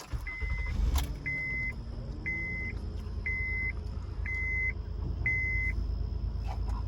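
Honda Odyssey 3.5L V6 engine running steadily, with the cylinder 3 misfire still present, while a dashboard warning chime beeps six times, about once a second. A single click comes about a second in.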